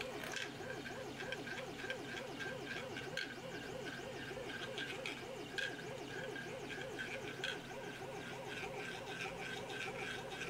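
3D printer bed being driven rapidly back and forth by its stepper motor at the marble track's resonant frequency: an even, rhythmic whine that rises and falls with each stroke, several strokes a second. Steel ball bearings rattle in the printed plastic track, with a few sharp clicks.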